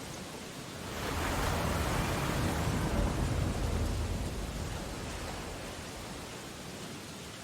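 Steady rain pattering on window glass in a storm, with a deeper rumbling surge that builds about a second in and dies away over the next few seconds.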